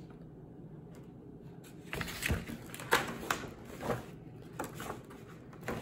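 Paper sheets and stencils being handled and shuffled by hand: after about two seconds of quiet, a string of short, irregular rustles and light taps.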